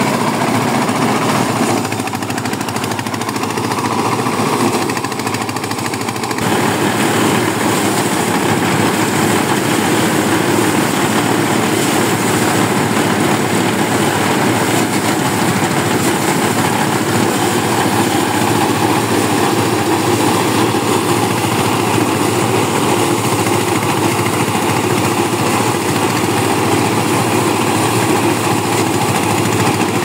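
Small diesel engine driving a paddy thresher by belt, the thresher drum beating the grain from rice stalks fed into it: a loud, steady mechanical clatter, dipping slightly for a few seconds and then swelling again about six seconds in.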